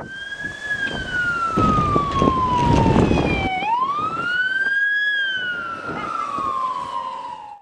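Fire truck siren wailing: one tone slides slowly down, sweeps back up about halfway through, then slides slowly down again. Under it is the rumble of the truck driving past, loudest in the first half.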